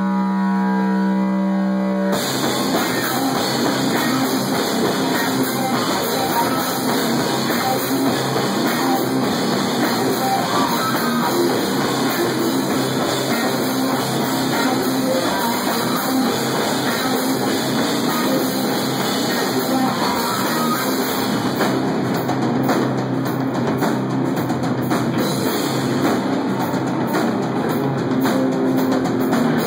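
Stoner metal band playing live: a steady held note rings for about two seconds, then the drums, guitar and bass come in together and play on.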